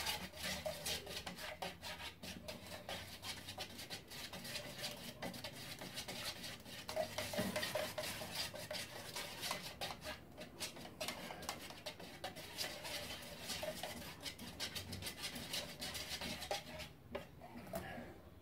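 A wooden stick stirring wood sealer in a metal can, scraping and clicking steadily against the can's sides and bottom. The stirring stops about seventeen seconds in.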